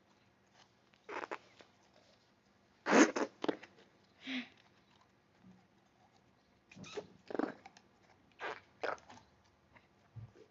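Fidget toy being worked by hand to make fart-like noises: a series of short noisy bursts, some in quick pairs, loudest about three seconds in.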